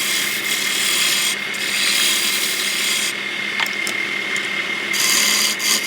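A tool scraping or rasping on wood, a steady rasping hiss. The hiss lets up briefly about a second and a half in, then drops away for about two seconds from the three-second mark before resuming.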